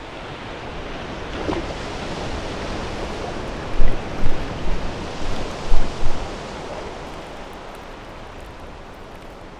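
Sea waves washing and splashing with wind, a steady rush, with a few louder low rumbles from about four to six seconds in.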